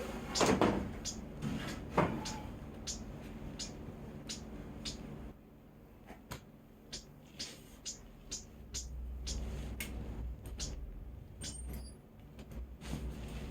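Irregular light clicks and knocks of tools and wooden parts being handled, a little louder in the first couple of seconds, with a brief low hum partway through.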